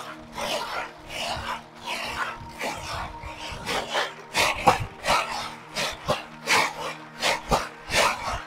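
Dried tiger nuts being scrubbed by hand against the weave of a large wicker basket: a rhythmic rustling swish, about two strokes a second and quicker in the second half. It is the dry cleaning of the nuts, rubbing off the soil without water.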